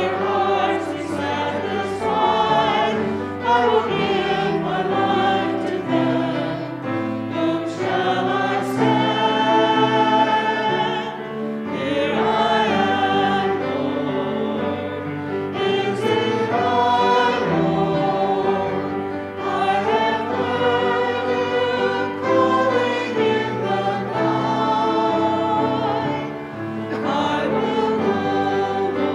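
Choir singing a hymn, several voices holding notes over a steady low accompaniment.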